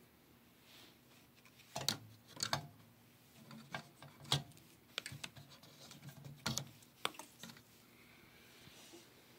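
Irregular clicks, taps and light clatter of small parts and tools being handled on an electronics workbench, a sharp click every second or so with quiet gaps between.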